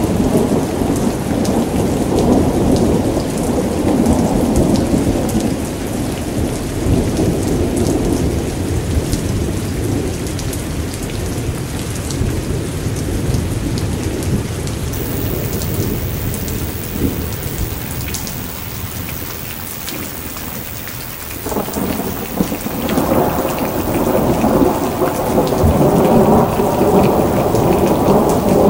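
Thunderstorm: rolling thunder rumbling over steady rain. The rumble fades away through the middle, then a fresh roll of thunder breaks in suddenly about three-quarters of the way through and builds.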